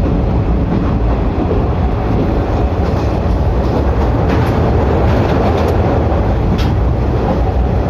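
105 series electric train running, a steady loud rumble with a faint steady tone and a few light clicks.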